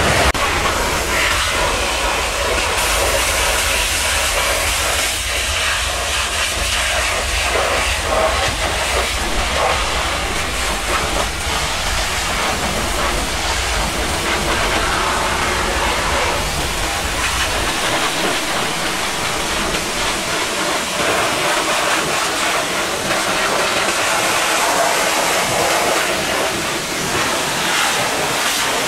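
High-pressure washer lance spraying water against a truck's tyre and chassis underside: a loud, steady hiss of the jet, with a low hum underneath that stops about two-thirds of the way through.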